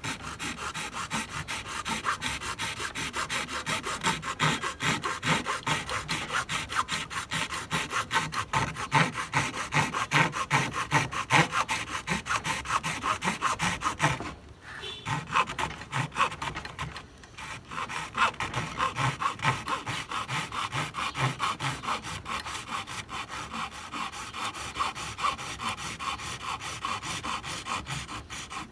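A bare hacksaw blade, held in the hands, sawing through a plastic mounting bracket on a Ford Contour electric fan shroud. It makes quick back-and-forth strokes, with two short pauses about halfway through.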